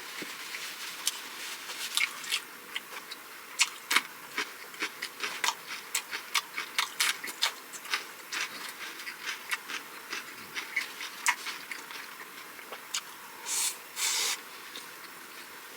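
Close-miked chewing of food, a dense run of small wet mouth clicks and smacks, with two short breathy rustles near the end.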